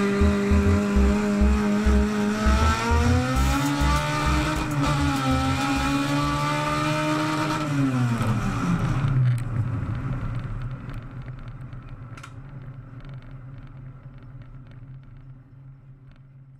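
Honda drag-race car's engine heard from inside its stripped cabin, revving up a few seconds in, holding higher, then dropping back about eight seconds in. After that the sound fades away.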